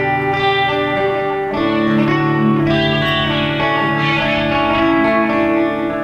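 Background music led by guitar, with held chords that change about one and a half seconds in.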